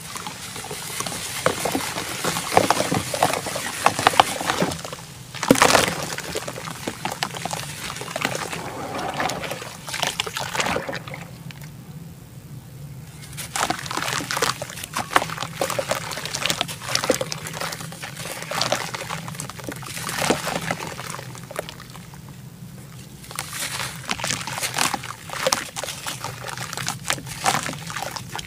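Blocks of dry red dirt being crumbled and smashed by hand into a basin of soapy water: gritty crunching and crumbling, with dirt pouring and splashing into the water and sloshing as the wet lumps are dipped and squeezed. There are brief lulls about 11 and 22 seconds in.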